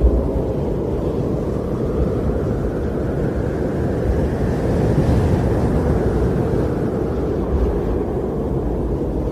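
Strong wind blowing steadily with a deep rumble, swelling into a gust about halfway through before easing again.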